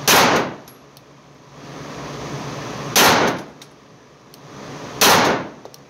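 Three 9mm pistol shots from an Arex Delta Gen 2, fired slowly about two to three seconds apart, each echoing briefly off the concrete walls of an indoor range.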